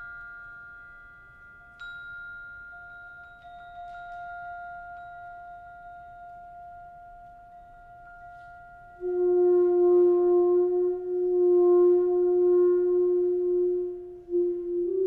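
Ringing struck mallet-percussion tones fade slowly, with a couple of fresh strikes. About nine seconds in, a wind instrument enters much louder on a long held low note that swells and dips, with a slight breathy edge.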